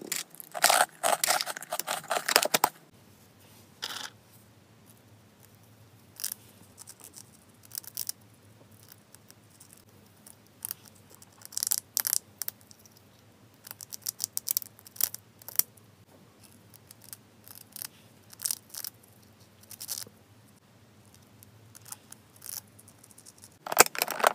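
Freeze-dried fruit cubes rattling and clicking against a clear plastic container for the first few seconds. Then come scattered small crunches as a hamster nibbles a piece of freeze-dried strawberry, and near the end a burst of plastic clicking and clatter as the storage containers are handled.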